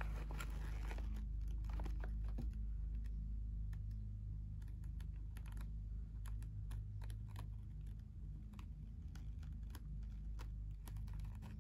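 Scattered light clicks and ticks of glossy photo paper being folded and pressed down by hand, over a steady low hum.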